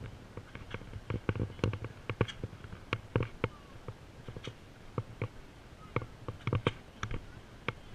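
Irregular light clicks and knocks, one or two a second, from a camera being carried by someone walking.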